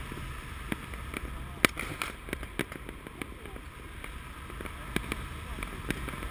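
Distant fireworks popping and banging at irregular intervals, the loudest bang about one and a half seconds in, over a low rumble of wind on the microphone.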